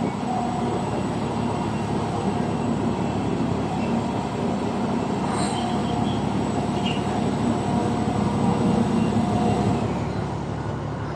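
Heavy diesel machinery running steadily, a low rumble and hum with a broad noisy wash over it, and one brief sharp click about five and a half seconds in.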